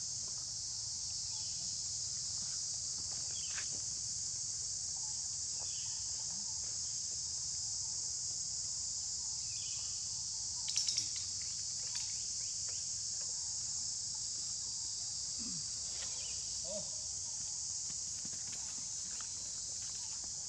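Steady, high-pitched insect drone, with a few faint short squeaks and a brief cluster of sharp taps about eleven seconds in.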